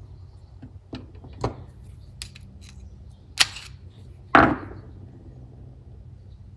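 Clicks and knocks of hand tools and small carburetor parts being handled on a workbench while a small two-stroke carburetor is taken apart. There are about five knocks; the loudest comes a little over four seconds in and rings briefly, over a steady low hum.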